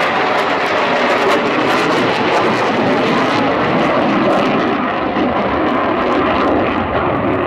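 F/A-18 Super Hornet jet engines roaring as the aircraft flies past, a loud steady rush; the high hiss falls away after about three and a half seconds as it moves off.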